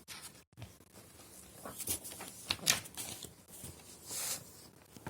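Faint scattered rustles and soft clicks, a few short noisy strokes spread through a low hiss.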